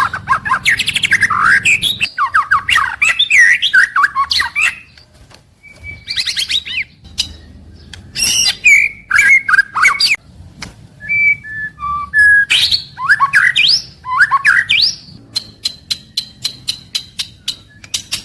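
White-rumped shama (murai batu) singing a loud, varied song of quick whistled phrases and sweeps, mixed with harsh notes and clicks. Near the end it breaks into a fast run of ticks.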